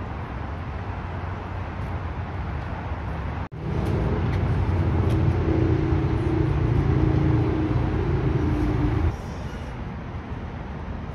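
Outdoor road traffic noise, a steady rumble. From about three and a half seconds in, it grows louder for about five seconds, with a low hum in it, then drops back to the quieter rumble.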